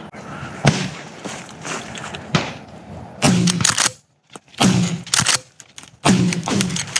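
Two sharp shotgun shots about a second and a half apart, the first the louder, then a run of irregular noisy bursts.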